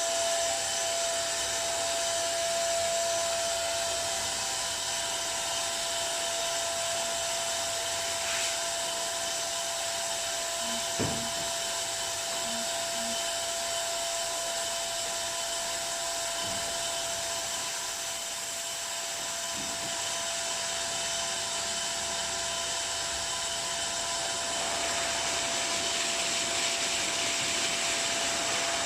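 Automatic tunnel car wash machine running: a steady rushing hiss with a constant whine, and a brief knock about eleven seconds in. The hiss grows a little stronger near the end.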